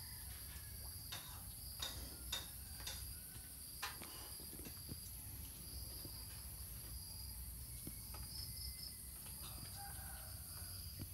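Faint rural ambience: steady high-pitched insect chirring throughout, with a few soft clicks in the first few seconds and faint short calls, likely chickens, later on.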